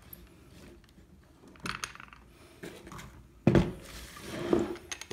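Metal parts of a drill press compound table clinking and knocking as its handles and screws are fitted by hand. There is a string of light clinks, with the loudest knock about three and a half seconds in and another about a second later.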